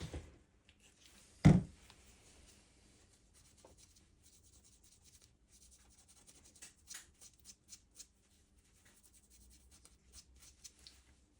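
A single loud knock about a second and a half in, then faint scattered scratching and light tapping of small tools and hands working at a repair bench.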